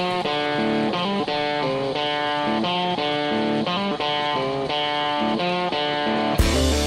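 Background music: a plucked guitar picking a repeating pattern of notes, about two a second. Just before the end a fuller, heavier band sound with deep bass and sharp hits comes in.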